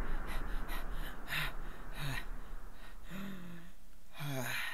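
A man's voice panting and gasping as if out of breath from running: a few short voiced breaths, then a longer gasp near the end that falls in pitch. Quick light clicks at about four a second sound in the first second.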